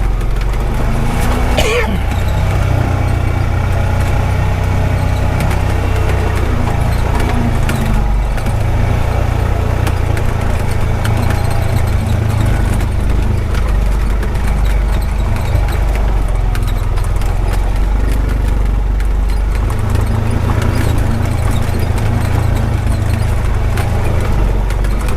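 Honda Pioneer 520 side-by-side running as it drives along a rough dirt road, a steady low engine drone that eases off briefly midway and picks up again about twenty seconds in.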